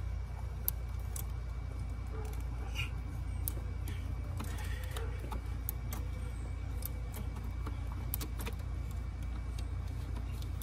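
Scattered light metallic clicks and clinks of a small hand tool, a 7 mm socket with a bit, slowly backing out the ignition-coil bolt in a tight spot under the fuel rails, over a steady low hum.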